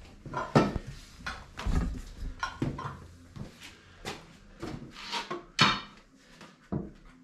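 Irregular metal clanks and knocks as steel plates and tools are handled while sliding a heavy milling machine; one louder clank about five and a half seconds in rings briefly.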